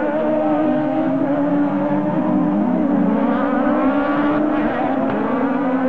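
Several 1600 cc autocross buggies racing on a dirt track, their engines held at high revs together. The engine notes overlap and waver slightly in pitch.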